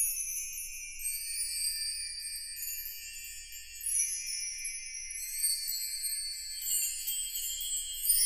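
Background music of high-pitched, ringing bell-like chimes, many notes overlapping and held.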